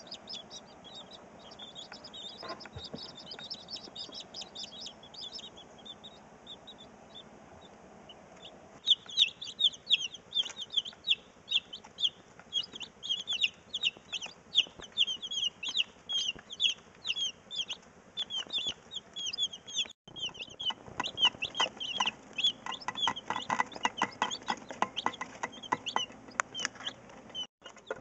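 A small flock of White Leghorn hens clucking and calling: rapid short high calls, faint at first and louder from about a third of the way through, with lower clucks joining in later.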